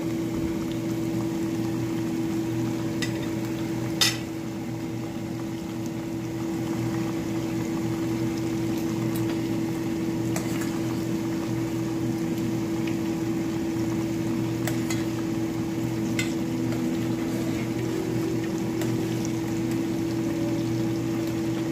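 Breaded shrimp deep-frying in hot oil in a stainless steel saucepan, a steady bubbling sizzle over a steady low hum. A few sharp clicks sound over it, the loudest about four seconds in.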